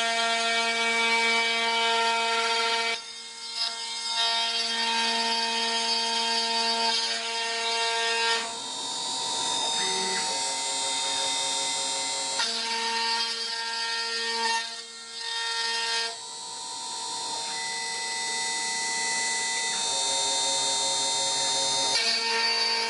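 CNC router spindle running steadily as its bit carves a wooden column turning on a rotary axis, a whining machine tone that changes abruptly several times.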